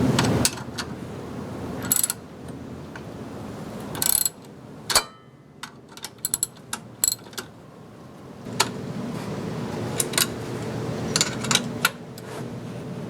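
Hand tools working the alternator mounting bolts on a car engine: scattered sharp metallic clicks and clinks, with a louder clank about five seconds in. A steady rushing noise runs under the second half.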